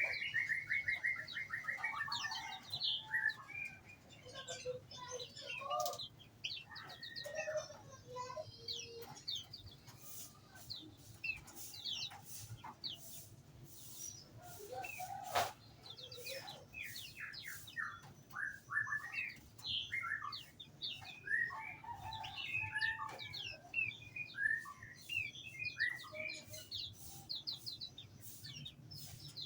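A chorus of small songbirds in an aviary: many short, overlapping chirps, whistled glides and quick trills from several birds at once, with scattered sharp clicks.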